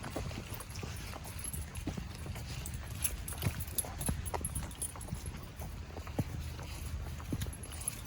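Footsteps of a walker and a large dog on a wet wooded trail, a string of irregular soft clicks and ticks over a low steady rumble, with light rain.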